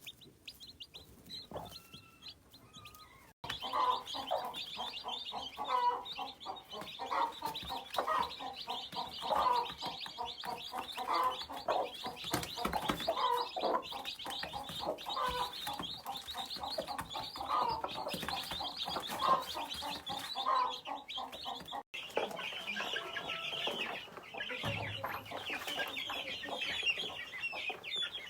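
Hens clucking among a brood of chicks that peep constantly, a dense high cheeping over the lower, repeated clucks. It is faint for the first few seconds, then much louder from there on.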